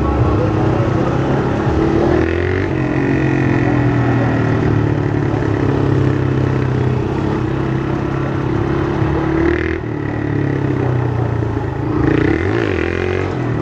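Honda CG 160 Fan's single-cylinder four-stroke engine through a straight can exhaust, ridden with the throttle opening and closing. The note dips about ten seconds in, then revs back up near the end.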